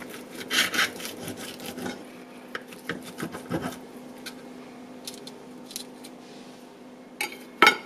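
Steak knife sawing back and forth through a seared ribeye steak, its blade scraping on the ceramic plate, with scattered light clicks of knife and fork and a sharper knock near the end.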